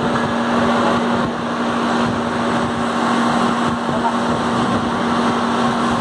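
Heavy workshop machinery for railway wheelsets running steadily: a constant hum with an even whirring noise over it.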